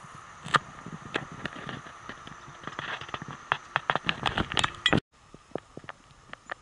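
Footsteps of a hiker walking on a trail: a run of sharp, irregular steps that come thicker near the middle, cut off abruptly about five seconds in, then fainter steps.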